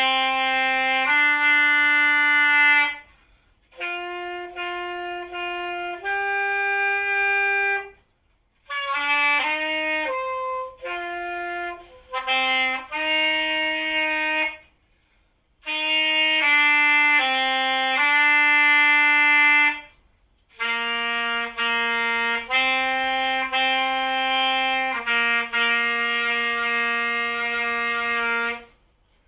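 Solo instrumental melody: a single line of held notes, played in short phrases separated by brief pauses.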